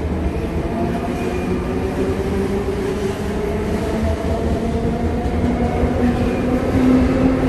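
Sotetsu 9000 series electric train pulling out of a station past the platform, its Hitachi IGBT-VVVF inverter-driven motors whining in tones that climb slowly as it accelerates, over a steady rumble of wheels on rails.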